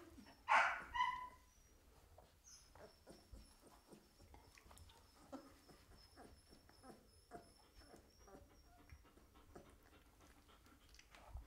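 Seventeen-day-old Belgian Malinois puppies: one gives a short whimpering cry about half a second in, followed by faint rustling and small squeaks as the litter stirs.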